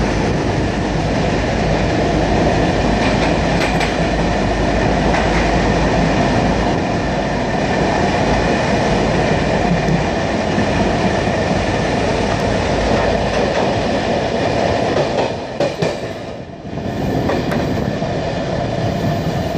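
Passenger train running on the rails through a short snow tunnel, heard from inside a coach: a steady loud rumble of wheels on track. The noise dips briefly about three-quarters of the way through, then picks up again.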